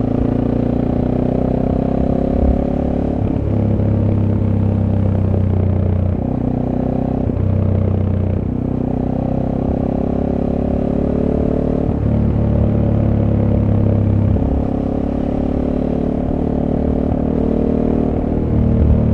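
SWM Superdual T's 600 cc single-cylinder engine running through its stock exhaust, heard on board while riding, its pitch rising and falling in steps every few seconds as the throttle opens and closes.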